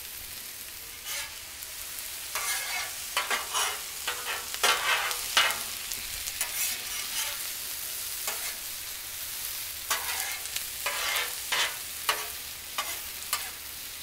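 Sliced onions and peppers sizzling on a Blackstone steel griddle while a metal spatula scrapes and turns them across the flat top, in many short, irregular strokes over a steady hiss.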